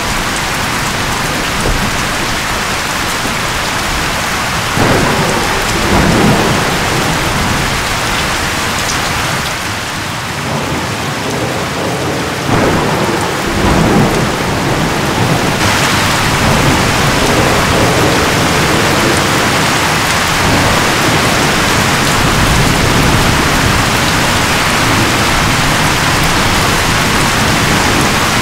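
Thunderstorm: a steady rush of rain and wind, with louder rumbles of thunder about five seconds in and again about twelve to fourteen seconds in.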